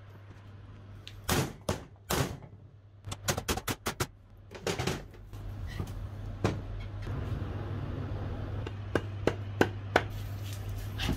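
A run of sharp, irregular knocks and clicks of hard objects being handled, several in quick succession about three seconds in, over a steady low hum.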